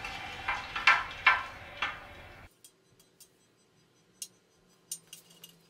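Hot Damascus blade (1095/15N20-type layers) being quenched in Parks 50 oil in a tall steel quench tube: a steady hiss, with tongs knocking against the metal tube four times as the blade is worked in the oil. About two and a half seconds in, the sound cuts off suddenly to faint scattered ticks.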